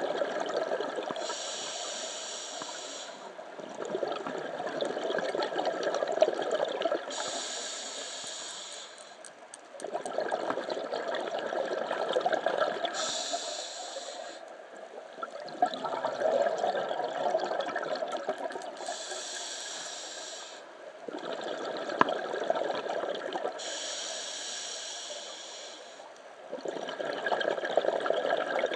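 A scuba diver breathing underwater through a regulator, about five breaths: each inhale is a short hiss from the demand valve, and each exhale a longer rush of bubbles, repeating every five to six seconds.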